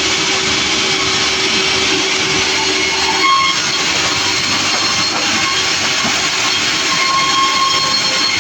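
Sawmill running: a loud, steady machine noise with a steady whine through it, and a brief louder surge about three seconds in.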